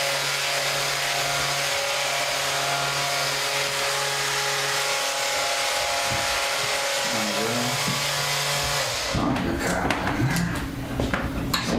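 Handheld electric vibration massage tool running with a steady hum, its pitch dipping briefly about seven seconds in as it is pressed against the muscle; it stops about nine seconds in, and a few knocks and rustles of handling follow.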